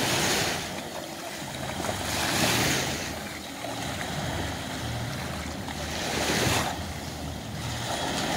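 Small sea waves breaking and washing up on a sandy beach, a swell of hiss every two to four seconds, over a low rumble of wind on the microphone.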